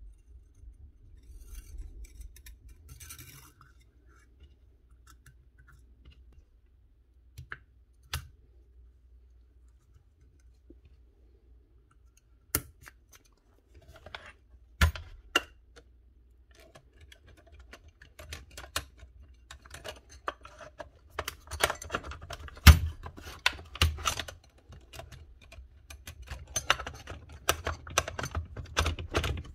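Metal springs, driver blade and plastic housing parts of a DeWalt 20V cordless nailer clinking and clicking as the driver return springs are fitted and the tool is put back together. A few single clicks at first, then a busy run of clicks and knocks over the last third.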